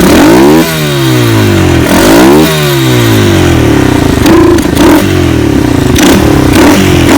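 Lifan 125 single-cylinder four-stroke pit bike engine running and being revved: the revs climb sharply twice and fall back, then it runs on with short blips of throttle. The engine is running fine after starting first go.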